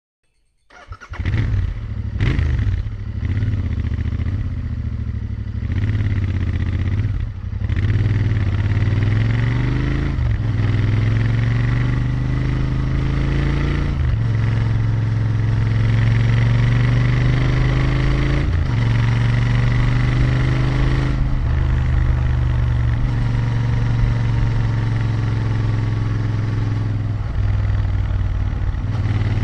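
Royal Enfield Interceptor 650's parallel-twin engine and exhaust, starting under a second in, with a few short revs, then accelerating through the gears: the pitch climbs and drops back at each of about four upshifts, then settles into steadier running.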